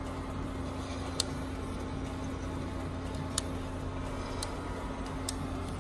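Coffee beans popping at the start of first crack in a Behmor 1600 Plus drum roaster: four sporadic sharp pops over the roaster's steady hum.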